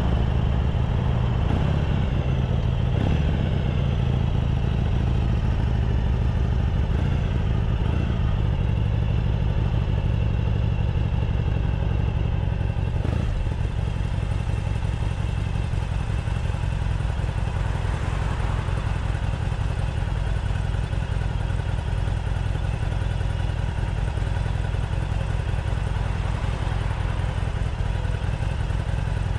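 Harley-Davidson Sportster SuperLow 883's air-cooled V-twin running steadily through its stock exhaust, the engine note shifting a little in pitch in the first few seconds and then holding even.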